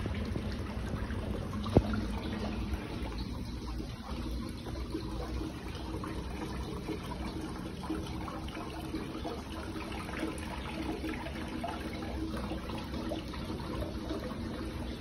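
Steady trickling of running water, with one sharp knock about two seconds in.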